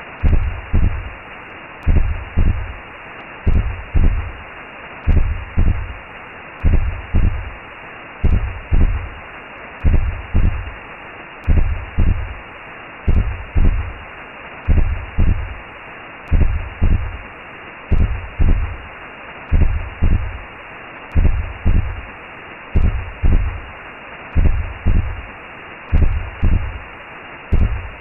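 Recreated womb sound: a steady whooshing hiss with a slow, low heartbeat thumping twice about every second and a half.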